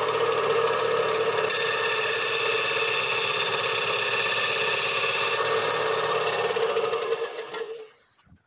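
Bandsaw running and cutting through the protruding end of an ash axe handle and its cherry wedge, trimming them flush with the axe head. The sound is steady, with a held hum, and fades out near the end.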